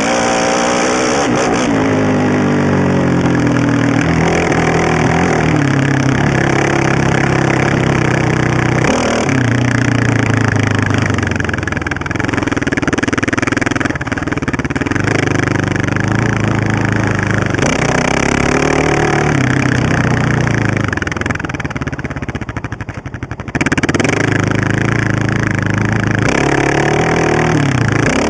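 Honda TRX700XX sport ATV's single-cylinder four-stroke engine, with an FMF aftermarket header, running hard under the rider, its pitch repeatedly climbing and dropping back with throttle and gear changes. Near the end it eases off to slow, low-rpm running for a couple of seconds, then revs up again.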